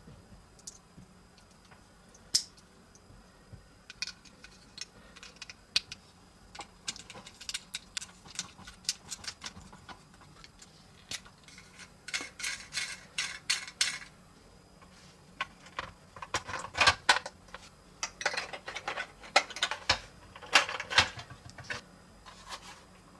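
Hard plastic toy-kit parts being handled and snapped together by hand: scattered clicks at first, then denser runs of clicking and clatter around the middle and through the second half.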